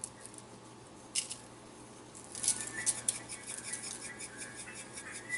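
A seasoning shaker is shaken rapidly over a foil-lined baking pan of fish, giving a fast run of light rattling taps that starts a little past two seconds in. A single click comes about a second in.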